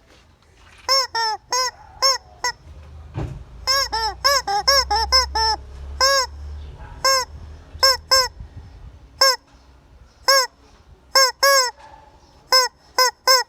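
A chicken calling over and over in short, arched, honking notes, some single and some in quick runs of two to four. A low rumble sits under the calls for a few seconds in the middle.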